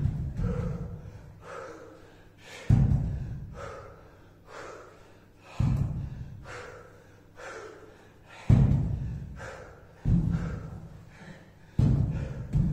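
A person panting hard through kettlebell exercise reps, with a dull thud every one and a half to three seconds.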